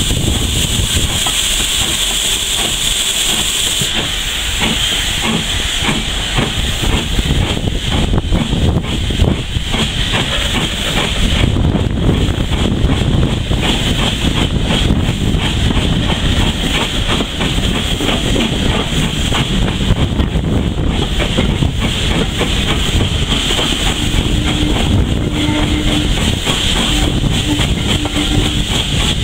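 Train running along the track. A hiss of steam is loud at first, then the wheels rumble and click steadily on the rails, with a faint steady tone briefly near the end.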